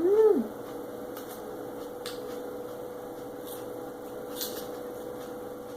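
A person eating roast chicken: a brief hummed "mm" right at the start, then a few faint scattered clicks and small eating noises, over a steady electrical hum.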